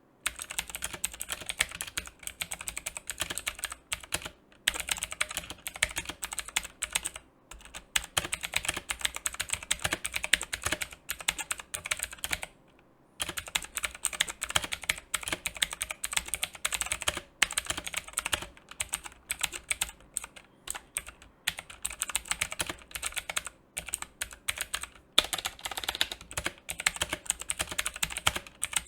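Fast typing on a mechanical keyboard with clicky Outemu Blue switches, not yet lubricated: a dense run of sharp clicks, broken by short pauses and one longer pause about twelve seconds in.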